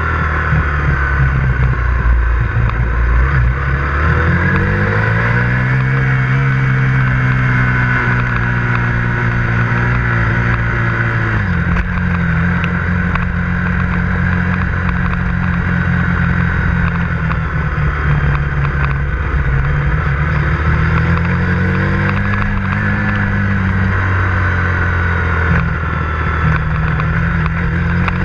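KTM 125 Duke's single-cylinder four-stroke engine under way, heard from on the bike. The revs climb a few seconds in and hold, drop suddenly about twelve seconds in, then rise and fall again later and climb once more near the end.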